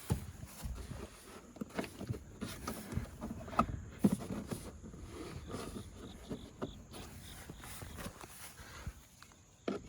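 Irregular clicks, knocks and rattles of the 2023 Acura Integra's plastic interior trim panels being wiggled and pulled off their clips, with the sharpest knocks a little under halfway through.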